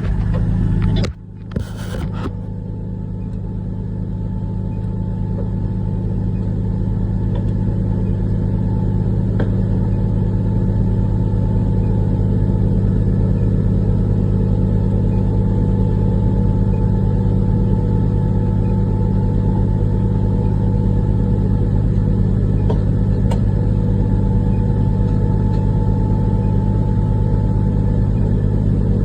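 Large diesel engine running with a steady low drone. The sound drops out briefly about a second in, then builds back up over the next several seconds and holds steady.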